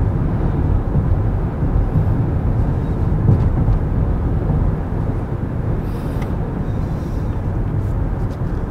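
Steady tyre and wind noise inside the cabin of a Kia EV6 electric car cruising at highway speed: an even low rumble from the tyres on the pavement, with no engine note.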